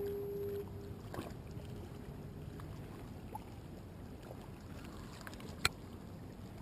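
Steady wind and water noise at the water's edge, with a brief steady hum in the first half-second and a couple of light clicks, one about a second in and one near the end.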